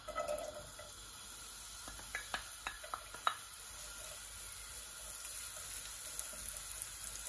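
Chopped onions sizzling in hot vegetable oil in a non-stick pot. A wooden spoon stirs them, tapping and scraping the pan several times a couple of seconds in.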